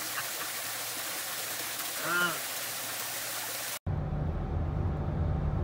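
Steady rushing of running water, with one short call about two seconds in. Nearly four seconds in it cuts off abruptly to a low steady rumble.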